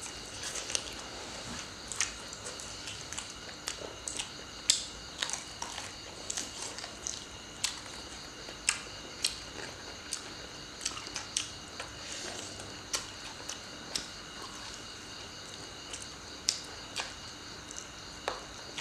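Close-miked eating sounds: chewing and crunching, with many sharp, irregular clicks and cracks as food is bitten and torn apart by hand.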